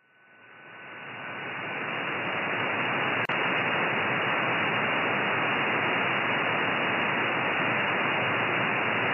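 Hiss from an RTL-SDR receiver tuned to the 2320 MHz amateur band in single sideband with no signal on the channel, limited to the voice passband. It swells up from near silence over the first two seconds as the receiver's slow AGC restores gain after the strong station stops transmitting, then holds steady. A faint steady tone fades out early on, and there is one brief click about three seconds in.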